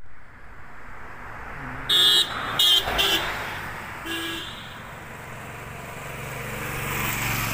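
A vehicle horn honks four short times, the first a little longer and the last quieter. Then a vehicle on the road comes closer and grows louder toward the end.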